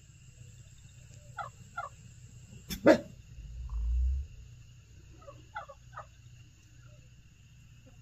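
Short animal calls in the distance, a pair and then a group of three, with one loud sharp sound about three seconds in followed by a low rumble.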